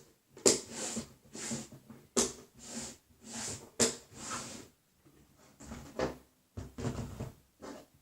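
Slime being squeezed and worked by hand, giving a string of short wet squelches, about one or two a second.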